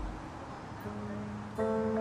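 Background music: a single plucked note rings out about a second in, and a chord of several notes joins it near the end.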